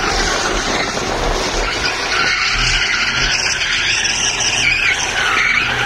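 Mazda RX-8 drifting: its tyres squeal and skid steadily on asphalt, with the car's engine rumbling underneath.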